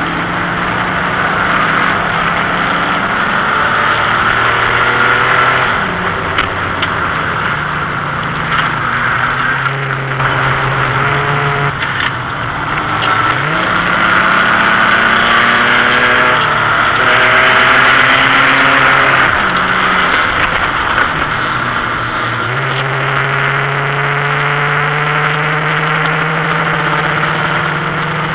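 BMW E28 528e race car's inline-six engine heard from inside the cabin at racing speed, its pitch climbing and then dropping several times through gear changes and lifts, over a steady rush of wind and road noise.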